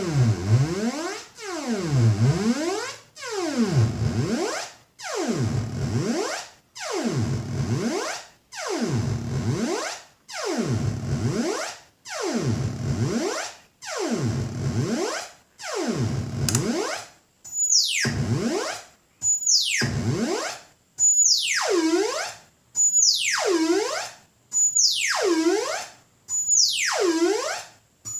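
Future Sound Systems Brunswick synthesizer, a DIY build, making a repeating pitch sweep with short breaks between: about every second and a half the tone dives and rises again. After about 17 seconds the sweeps change, starting from a high whistle, swooping down and turning sharply back up.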